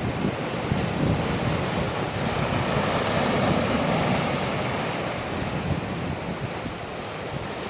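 Ocean waves washing in, with wind buffeting the microphone. The surf swells about three seconds in and eases off toward the end.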